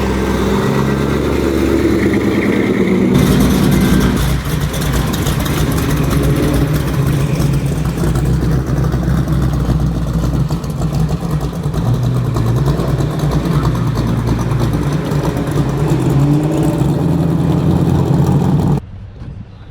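Car engine running loud and close, with a rapid, even firing pulse in its exhaust. The sound shifts abruptly about three seconds in and drops away suddenly near the end.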